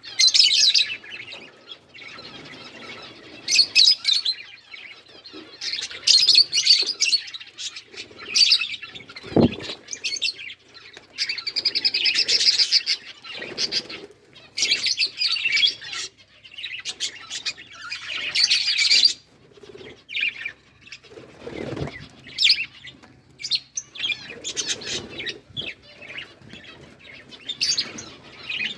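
Budgies chattering and chirping in irregular bursts of fast, high warbling, with a couple of dull thumps in between.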